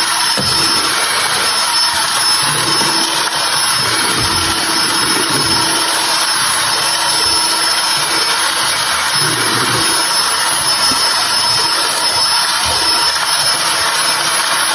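Electric hand mixer running steadily at a constant pitch, its beaters whipping chilled whipped cream and powdered milk into mousse in a plastic tub.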